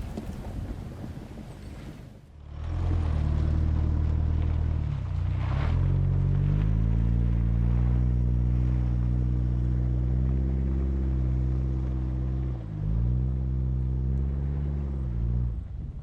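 A 4WD's engine running steadily under way, its drone dipping briefly in pitch twice, as at gear changes, before settling again. The first couple of seconds are rough wind and road noise.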